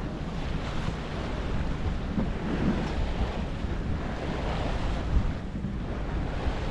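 Wind buffeting the microphone over the steady rush of sea water along a sailboat's hull as it sails.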